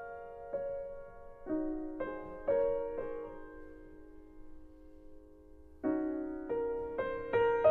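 Slow solo piano music: single notes and chords struck a second or so apart, ringing out and fading nearly to silence in the middle, then a new chord and a run of livelier notes near the end.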